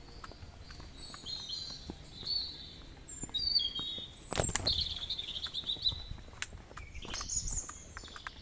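Songbirds singing: a string of high, warbling, gliding phrases, with a sharp knock about four and a half seconds in.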